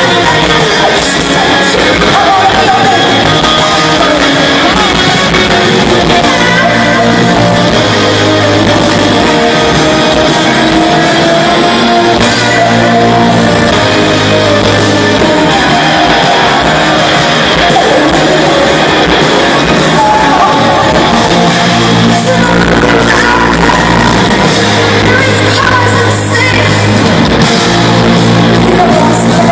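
Live rock band playing loudly: electric guitars, bass and drums, with a female lead singer singing over them. Heard from within the audience in a large hall.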